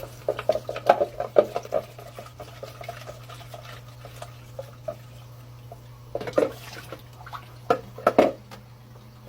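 Plastic cat water fountain being rinsed and handled: irregular knocks and rattles of plastic parts with some water, busiest in the first two seconds and again around six and eight seconds in.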